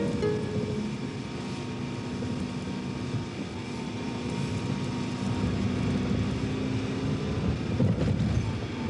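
Car driving along a road: steady engine hum and road rumble heard from inside the cabin.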